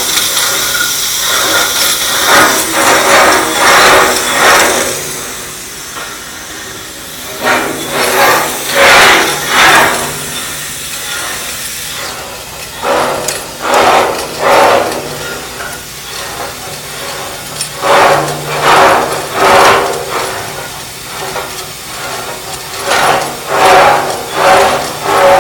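Holmes shoe pipe grinder reaming out a pipe: a steady machine hum with loud grinding surges that come in groups, about two a second, as the cutting shoe bites into the pipe.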